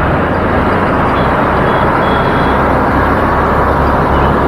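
Loud, steady wind and road noise buffeting the microphone of a camera on a moving road bike.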